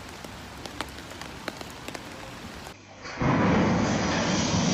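Steady rain hiss with scattered ticks of single drops. About three seconds in it cuts off abruptly and much louder music begins.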